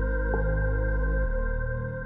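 Ambient background music: sustained synth tones over a low bass line that changes note about once a second, with a light bell-like note struck about every second.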